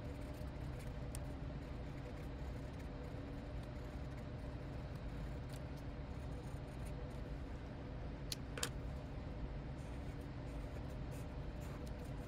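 Quiet room tone with a steady low hum, under faint taps and scratches of a felt-tip pen writing in a paper notebook. Two sharper clicks come about eight and a half seconds in.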